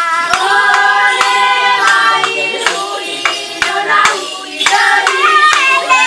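Traditional Sikka welcome song: a group of voices singing in chorus, holding long notes that slide between pitches, with sharp knocks scattered through it.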